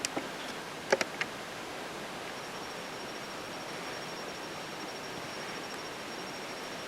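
Quiet woodland ambience with a steady hiss, broken by a few short sharp clicks in the first second or so; a faint thin high tone comes in after about two seconds.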